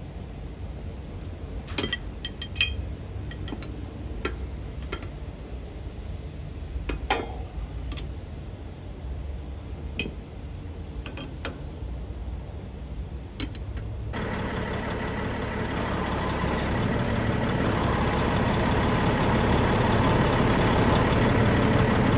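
Metal clinks and taps of a spanner on hydraulic fittings as a pressure gauge test hose is connected. About two-thirds of the way in, the tipper truck's engine takes over, running and growing steadily louder.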